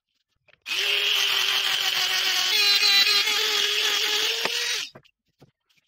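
Handheld rotary tool running with a steady whine as its small bit grinds into the wooden frame, starting about a second in and stopping suddenly after about four seconds.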